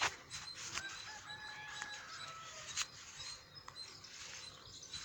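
A rooster crowing, one drawn-out call with a step in pitch, among a few sharp clicks.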